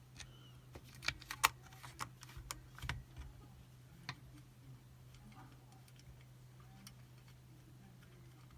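Sharp clicks and taps of a Chubb Detector lever lock and tools being handled while it is taken apart: a cluster in the first three seconds, a couple more around four seconds, then only a faint steady hum.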